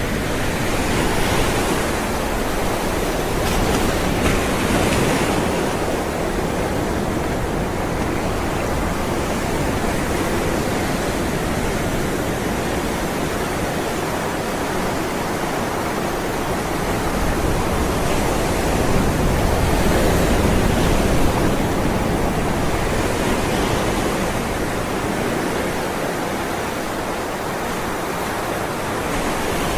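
Ocean waves rolling and breaking in a steady wash of surf, swelling gently louder a couple of times.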